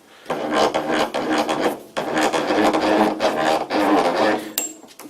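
Tailstock of an old rusty lathe being worked by hand, dry metal parts rubbing and grinding with a rough drone in three strokes of one to two seconds each, then a sharp click near the end. The grinding is a sign that the tailstock is dry and needs lubrication.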